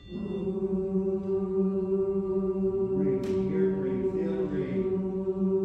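Women's barbershop-style a cappella chorus coming in together on one chord, held for about three seconds, then the parts begin to move through the song.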